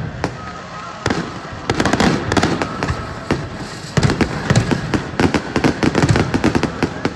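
Fireworks going off in rapid volleys of sharp bangs and crackling pops, with one dense flurry about a second in and a longer, denser one from about four seconds in.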